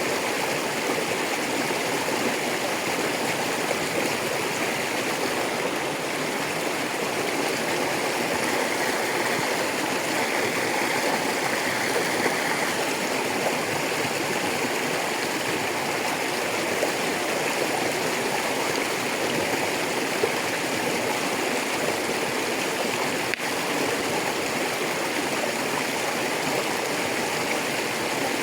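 A rocky river running over stones: a steady rushing and babbling of water.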